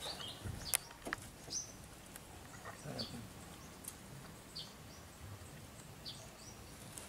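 Faint, short high-pitched chirps, about one every second and a half, over quiet outdoor background noise, with a couple of sharp clicks in the first second or so.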